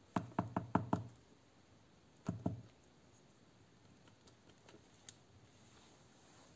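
Light knocks from handling: five quick taps in under a second, then two more about a second and a half later.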